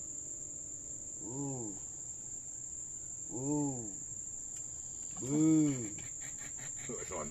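Steady high-pitched drone of crickets. Over it come three drawn-out calls, each rising then falling in pitch, about two seconds apart, the last the loudest.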